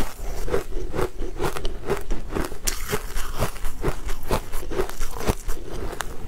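Close-miked crunching and chewing of a mouthful of frozen, snow-like white ice, with quick, irregular crackles and sharp cracks several times a second.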